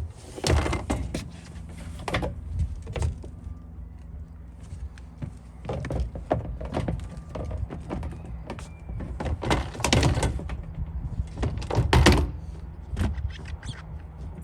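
Irregular knocks, thuds and clatters on the fire truck's metal roof deck, footsteps and handling of hatches or fittings, loudest about half a second in and again near the tenth and twelfth seconds, over a steady low hum.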